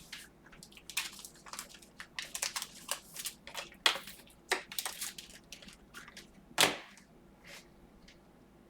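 Sports cards and their plastic sleeves being handled: irregular rustles and clicks, with a sharper click about six and a half seconds in.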